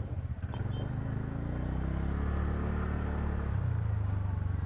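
Motorcycle engine running at road speed under a low wind rumble, picked up by a lavalier mic with the helmet visor open. The engine note climbs a little, then drops back about three and a half seconds in.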